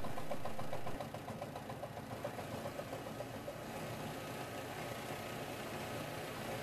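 De-Terminator bowling-ball spinner running, with the ball whirring on its rollers during a spin-time test. A fast rhythmic rumble fades away over the first few seconds, and the sound drops a step about a second in.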